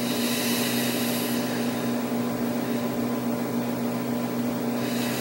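Steady machine hum of room tone, a low drone with one strong even tone, with a soft hiss over about the first second and a half.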